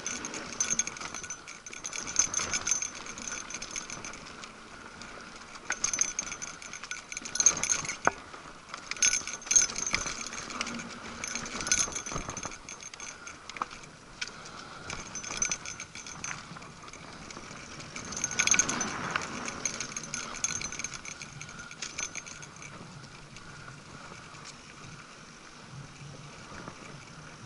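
Mountain bike rattling over a rough dirt singletrack, its chain and parts jangling in irregular bursts as it takes bumps, with the tyres rolling over dirt and dry leaves. The jolts ease off near the end as the trail smooths out.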